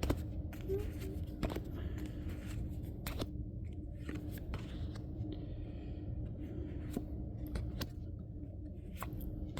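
Trading cards handled and flipped through one by one from a freshly opened booster pack: soft sliding with a few sharp little clicks and snaps, over a steady low room hum.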